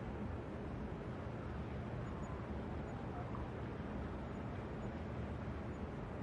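City traffic ambience heard from a rooftop: a steady low rumble and hum of distant traffic, with a few faint short tones drifting above it.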